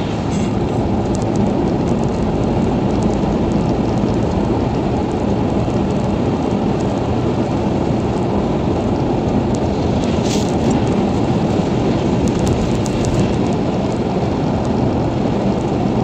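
Steady road and engine noise heard inside a car's cabin while it drives at highway speed on a wet road, with a few faint clicks around ten to thirteen seconds in.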